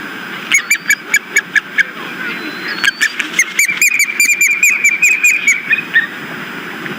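Osprey calling from the nest: two runs of short, sharp whistled notes, the second run longer and faster, over a steady low background rumble.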